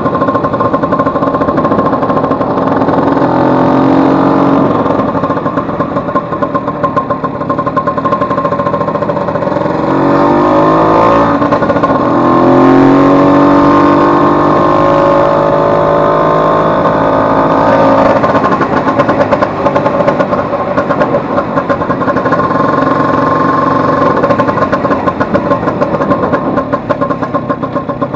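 Vespa 150's single-cylinder two-stroke engine running loudly. Its pitch rises about three seconds in, and rises again several times from about ten to eighteen seconds in before it drops back to a steady run. This is a test run after its broken elastic pinion gear was replaced, and the owner finds engine and gear change running perfectly.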